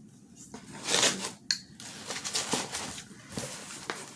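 Packaging being handled: a loud rustle and crinkle about a second in, then scattered crackles and small clicks as items are moved about.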